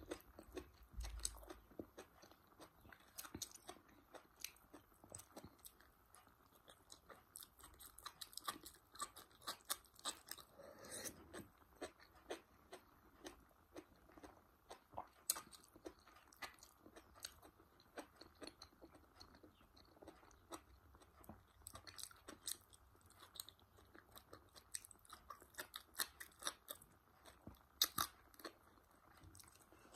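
Close-miked chewing of asparagus curry eaten by hand: many short, irregular wet clicks and crunches from the mouth, with a few louder crunches.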